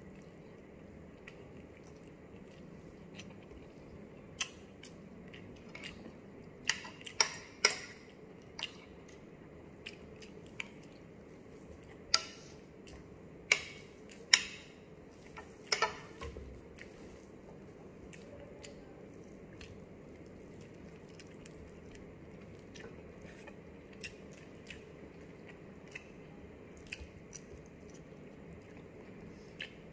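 A person chewing and biting into stewed chicken with rice, with a dozen or so sharp clicks of a fork and spoon against a plate, most of them between about 4 and 16 seconds in.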